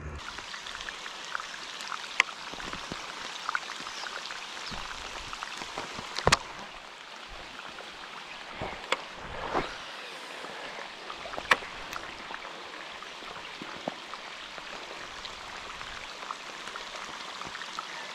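Rain falling on a canal, a steady hiss of drops on the water with a few sharp ticks now and then.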